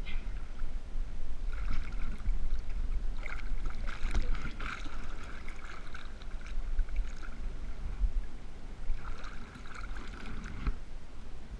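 Lake water lapping and splashing right at a camera held at water level, in irregular spells, over a constant low rumble.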